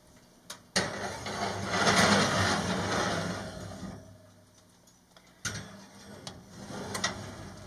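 A skillet set down on a wire oven rack with a sharp clank and slid in with a scraping sound for about three seconds, then a metal loaf pan set on the rack with a few more clinks.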